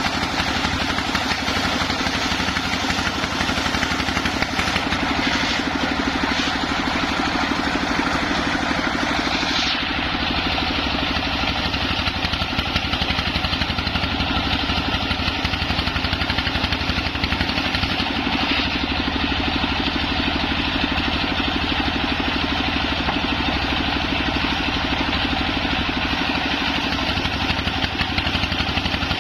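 Engine-driven home-built circular saw running steadily, its engine and spinning blade giving a continuous mechanical drone. The top of the sound thins out about ten seconds in.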